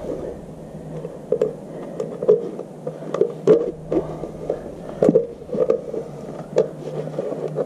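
Handling of a grey PVC electrical box while a conduit connector is fitted into its back: irregular plastic clicks and knocks, several a second at times, over a steady low hum.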